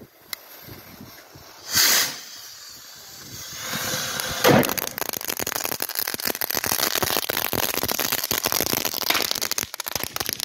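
Fireworks: a short hiss about two seconds in, a bang a couple of seconds later, then several seconds of dense, rapid crackling that stops at the end.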